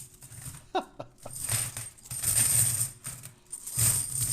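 Silver Franklin half dollars poured from a bag onto a pile of coins, a jingling cascade that comes in several surges.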